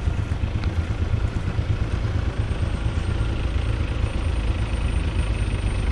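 Engines of a slow-moving queue of SUVs and jeeps running close by, a steady low rumble.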